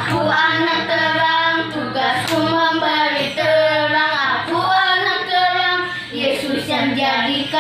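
Two children singing a Sunday-school action song together, holding long notes.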